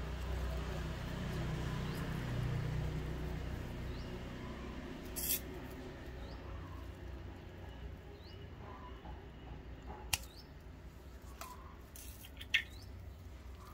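Spider plant leaves and plantlets being handled, giving a few sharp clicks and crackles, with short faint high chirps like a small bird's recurring every couple of seconds and a low rumble in the first few seconds.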